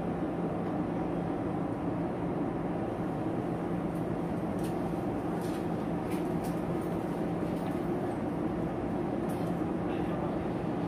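Steady hum inside a Shizuoka Railway train car standing at the platform, with a constant low tone from its air conditioning and on-board equipment running while it waits to depart. A few faint ticks come through midway.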